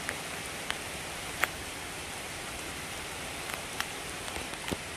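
Steady rain, with single drops now and then landing as sharp ticks, the loudest about a second and a half in.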